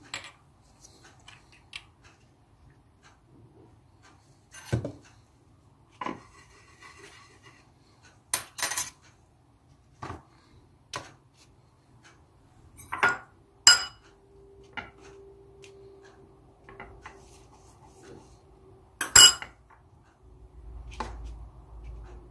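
Scattered clicks and knocks of small objects being handled and set down on a countertop and tray, a dozen or so spread out, the loudest about nineteen seconds in.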